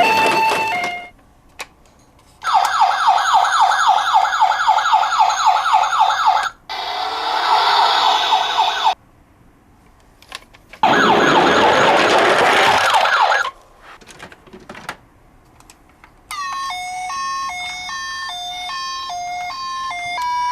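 Electronic sirens of toy miniature emergency vehicles, several in turn with short pauses between. A two-tone hi-lo siren stops about a second in. Then come a fast repeating yelp, a noisier warbling siren, and a rising wail, and near the end a stepping two-tone siren starts up.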